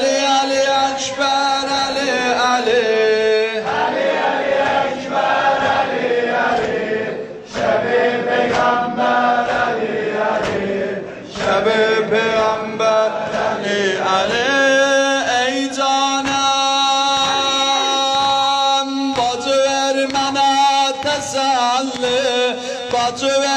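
A group of men chanting a Muharram mourning lament in unison, with regular chest-beats keeping time, most distinct in the second half.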